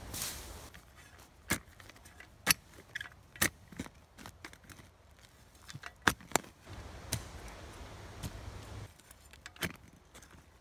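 Footsteps swishing through dry leaf litter, then a folding steel shovel chopping and scraping into soft forest soil: a run of sharp metallic chops and clinks, about eight loud ones, with the scrape of earth and leaves between.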